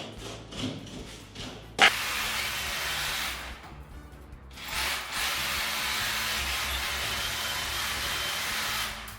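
Electric drill running in two long runs, about a second and a half and then about four seconds, with a short pause between. It starts with a sharp knock and runs at a steady pitch.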